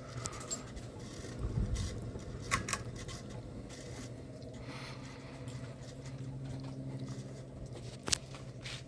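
Harbor Breeze Alaska 42-inch ceiling fan running with a steady low motor hum. A few sharp clicks sound over it: two close together about two and a half seconds in and one near the end.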